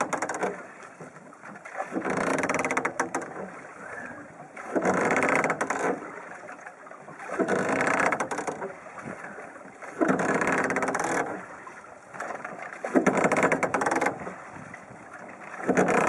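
A long wooden oar sweeping through the water of a small sailboat under oar power, a rush of water with each stroke, about every two and a half seconds.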